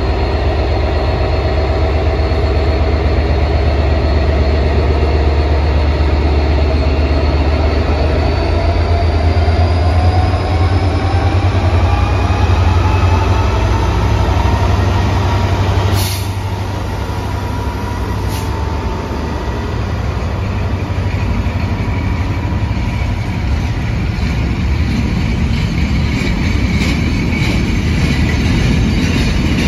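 Class 66 diesel-electric freight locomotive running past, its two-stroke V12 diesel engine giving a deep hum with a whine rising in pitch, followed by its train of box wagons rolling by. Two sharp clicks come about sixteen and eighteen seconds in, and the wagon wheels click over the rail joints near the end.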